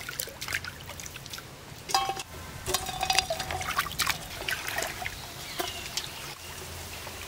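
Water splashing and trickling as live rice field crabs are rinsed by hand in a tub of water, with irregular small knocks and clicks as the crabs are handled and dropped into a steel bucket.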